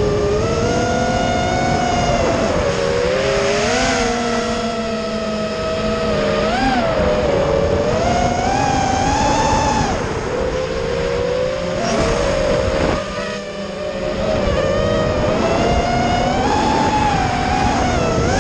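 FPV racing quadcopter's brushless motors whining, heard from its onboard camera, the pitch rising and falling with the throttle over a rushing hiss. About two-thirds of the way through, the whine drops and eases for a moment, then picks up again.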